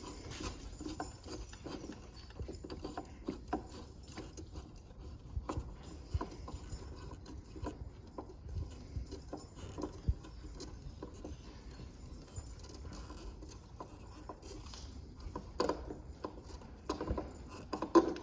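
Scattered small metallic clicks and taps of a hand wrench and hardware as a Jeep Wrangler JL's factory hood latch is unbolted, over a steady low rumble.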